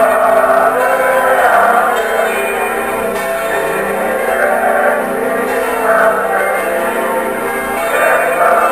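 Church bells ringing continuously, many strokes overlapping into a steady peal.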